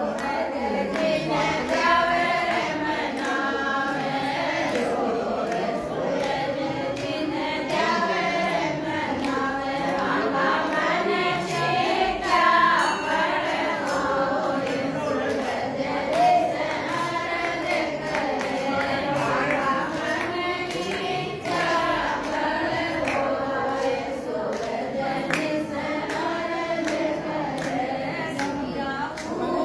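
A crowd of devotees singing a devotional song together, many voices in unison.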